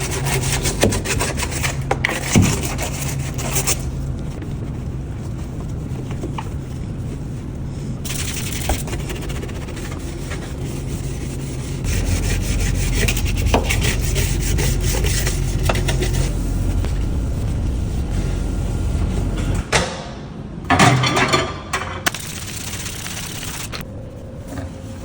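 Surfaces being scrubbed and wiped during cleaning: irregular rubbing and scraping strokes, with a steady low hum underneath and a few louder knocks and handling noises near the end.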